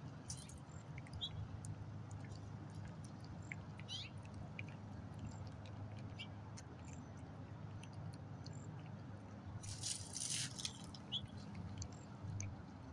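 A cat chewing and licking soft roasted turkey meat: a steady run of small wet clicks and smacks, with a louder burst about ten seconds in.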